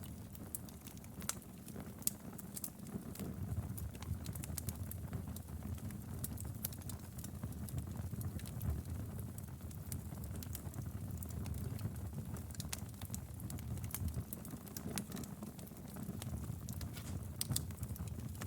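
Wood fire burning in a fireplace: a steady low rumble of flames with scattered sharp crackles and pops.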